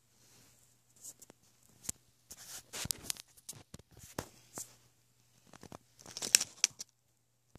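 Rustling, crinkling handling noise with sharp clicks, a phone being moved about in the hand with fingers rubbing near its microphone, in irregular bursts that are loudest about six seconds in. A faint, steady, low hum runs underneath.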